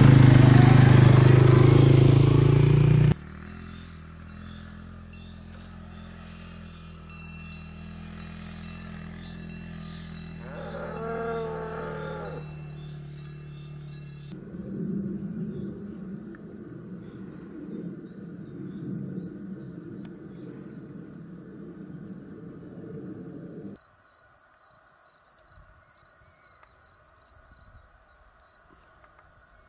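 A quad-bike (ATV) engine running for about the first three seconds, then cutting off abruptly. After that, crickets keep up a steady pulsing high trill.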